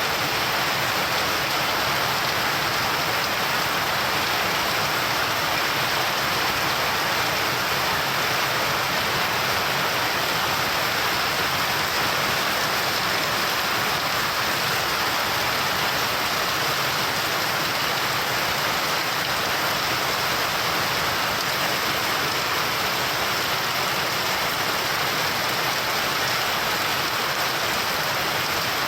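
Steady heavy rain falling, a constant even hiss without thunder.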